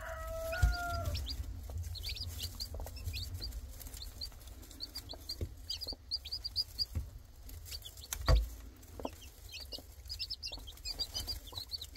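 Newly hatched Golden Spangled Appenzeller Spitzhauben chicks peeping: quick clusters of short, high cheeps again and again. There is a short, low, drawn-out call at the very start, and two dull thumps, one about a second in and a louder one past the middle.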